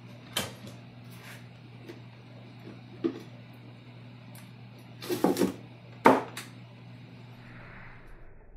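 Wooden knocks as a wooden divider board is handled and set into a deep wooden hive body: a couple of light taps, then a quick cluster of knocks about five seconds in and a sharp single knock a second later. A low steady hum runs underneath and fades out near the end.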